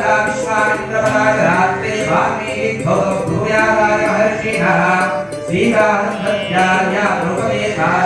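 Hindu devotional music with chant-like singing and a light, regular percussion tick.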